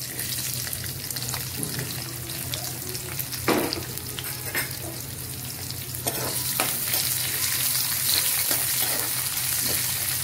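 Sliced onions sizzling in hot oil with cumin seeds in an aluminium kadai, with a few sharp clinks and scrapes of a steel spoon stirring against the pan.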